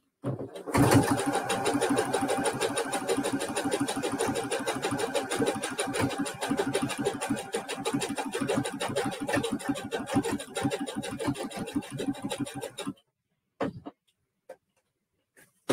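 SINGER Heavy Duty 6800C sewing machine stitching steadily, a fast, even run of needle strokes, then stopping about thirteen seconds in; a few light clicks follow.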